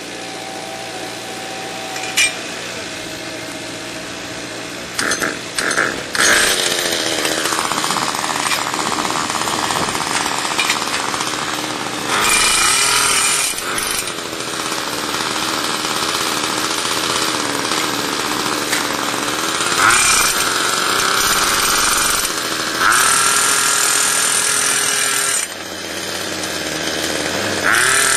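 Handheld jackhammer driving an Oz Post steel fence-post spike into the ground in several loud bursts, over a steady engine drone from the tractor. The audio runs at double speed.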